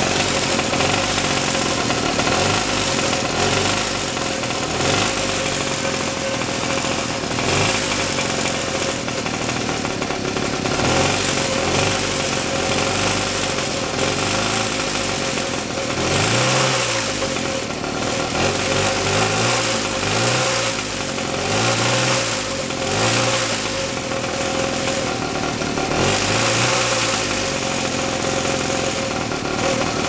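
Single-cylinder engine of a 1942 aircraft auxiliary power unit, fitted to a motorized bicycle, running steadily. From about halfway through, its speed rises and falls about once a second or so, hunting as the carburetor is adjusted: the engine will not settle to a proper idle.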